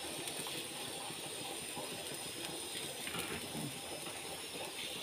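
Pancake batter sizzling on a hot griddle: a steady, quiet hiss, with a faint scrape or two of the ladle.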